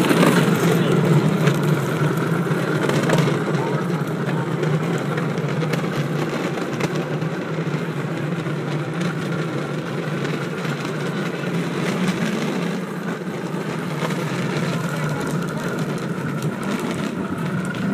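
Steady rumbling road noise with wind on the microphone, from moving along an asphalt street behind a bicycle towing a plastic wagon.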